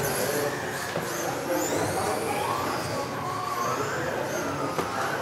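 Several electric RC off-road racing cars of the modified class running a heat together, their motors whining higher and lower as they accelerate and brake, over a constant rush of wheels on the track surface.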